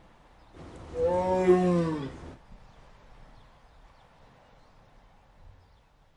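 One long animal call just under two seconds long, starting about half a second in; its pitch rises slightly and then falls away. A faint steady hiss lies beneath it and runs on after it.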